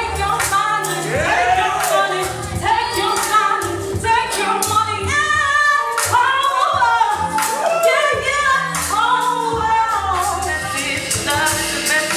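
A voice singing held, gliding melodic lines over a backing track with a bass line and a steady beat.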